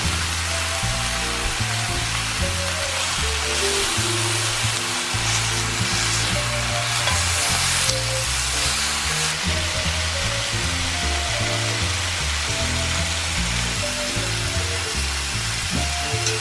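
Marinated oxtails sizzling steadily as they sear in hot oil in a cast-iron skillet, with background music carrying a stepping bass line underneath.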